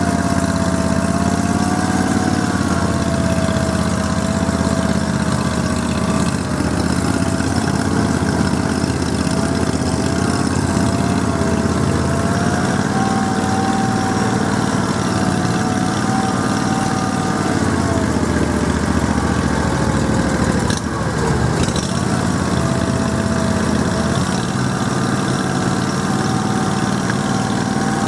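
Argo amphibious ATV engine running steadily, with a whine that wavers in pitch. About twenty seconds in, the whine drops away for a moment and then comes back.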